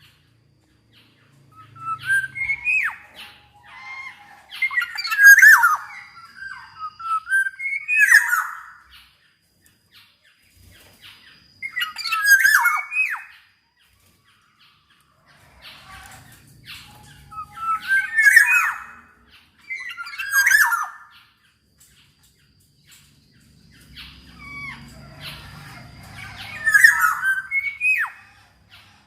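Black-naped oriole (kepodang) singing in short bursts of sliding whistled notes mixed with harsh, scratchy notes, about seven bursts with gaps of one to several seconds between them.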